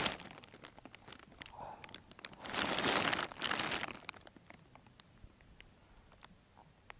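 Soft crunching and rustling with scattered faint clicks, louder twice in the middle for about half a second to a second each.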